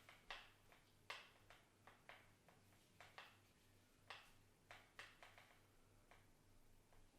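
Faint, irregular light clicks and taps, a few each second, over near silence.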